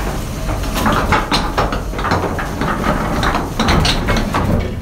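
Boat machinery running with a steady low rumble, with irregular clanks and knocks from the anchor winch and its wire cable.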